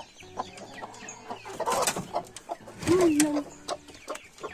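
Broody hen clucking and squawking in protest as she is grabbed off her nest, with a flurry of wing flapping about two seconds in and a loud squawk about a second later.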